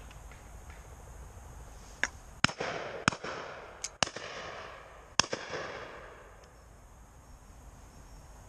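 A volley of shotgun shots at driven pheasants: about six shots in three seconds, the loudest two near the start and the end of the run. Each shot has an echo that rolls away.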